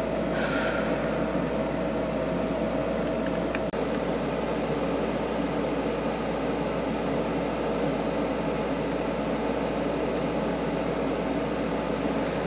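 Steady whir and hiss of a running fan, with a faint steady tone that stops a little under four seconds in.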